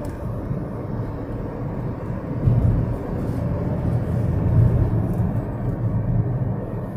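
Road and engine noise inside a moving Toyota car's cabin: a steady low rumble.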